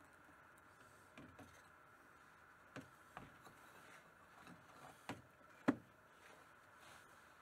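Quiet workshop with a few faint knocks and clicks from hands and tools handling things at a quench barrel. The sharpest knock comes a little past halfway through.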